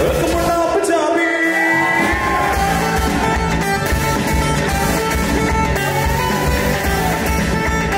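Band music: a singer over guitar and a steady beat, with the bass and drums dropping out briefly about a second in, then coming back.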